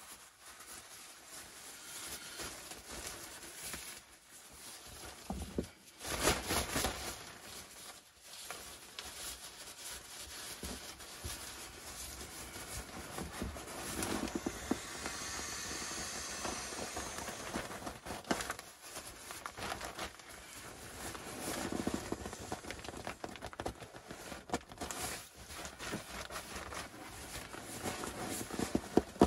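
Nylon fabric rustling and crinkling as an Exped pump bag is filled and squeezed to blow up an inflatable sleeping mat, with a steadier hiss of air in the middle and louder rustles about six seconds in and again near twenty-two seconds.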